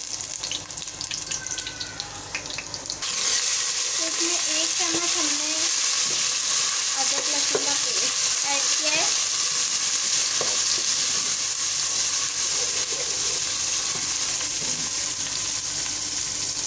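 Sliced onions sizzling as they fry in hot oil in a pot, stirred with a wooden spoon. About three seconds in, the sizzle jumps suddenly louder and then holds steady.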